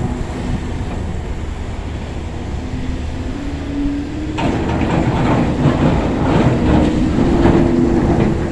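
Excavator engine running with a steady drone and a faint whine that rises a little. About four seconds in, loud metallic clanking and rattling join.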